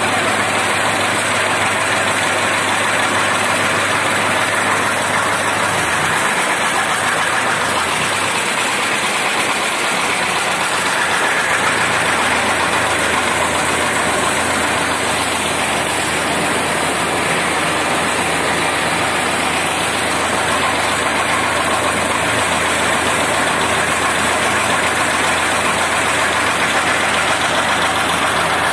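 Tractor-driven PTO chaff cutter running steadily as dry fodder is fed into it: a continuous loud mechanical whir and rush from the cutter blades and blower over the tractor's engine.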